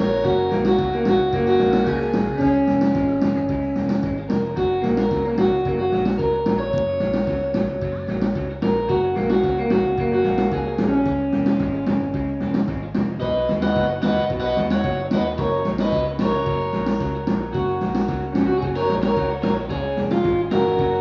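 Live band music: guitar and a held melody line over a steady drum beat.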